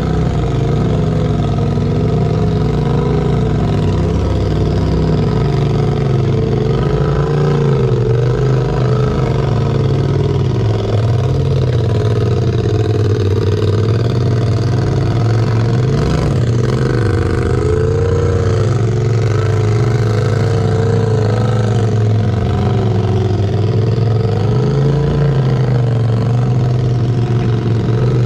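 Polaris RZR turbo side-by-side's engine running at low speed while rock crawling, its revs rising and falling gently as the vehicle picks its way over rocks.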